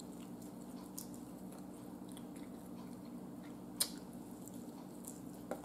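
Faint chewing and biting as a person eats meat with her hands, with small mouth clicks and one sharp smack about four seconds in, over a steady low hum.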